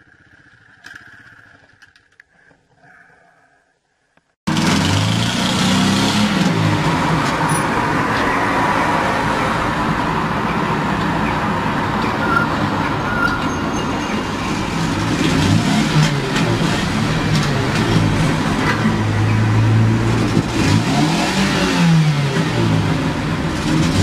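A car engine running hard and revving, its pitch rising and falling several times, over a loud rushing noise. It cuts in abruptly about four and a half seconds in, after a few seconds of faint sound.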